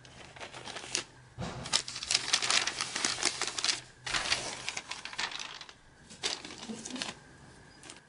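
Hands handling a clear plastic comic bag and cardboard, crinkling and rustling in three spells of quick, dense crackling.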